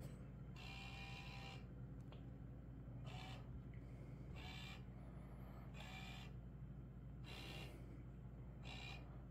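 Small electric motor of an automatic laser cat toy whirring in short bursts, six times, about every second and a half, as it moves the laser dot; a steady low hum underneath.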